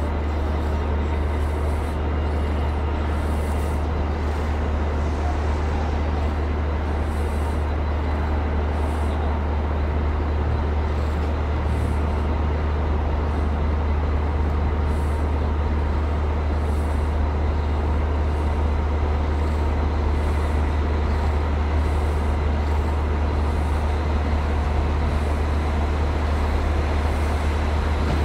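Diesel train engine idling: a steady, unchanging low drone with an even hiss of noise above it.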